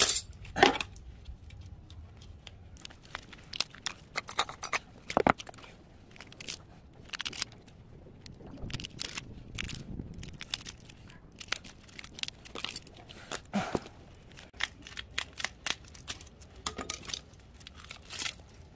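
Copper winding wire being pulled and broken off a small transformer's plastic bobbin by hand: irregular crackling, snapping and tearing clicks with short gaps between them.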